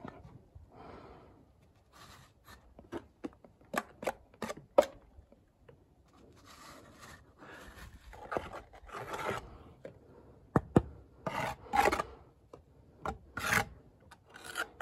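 Bricklayer's trowel scraping mortar against brickwork while bricks are set into the mortar bed, with repeated sharp taps and clicks in the first few seconds, then longer rasping scrapes.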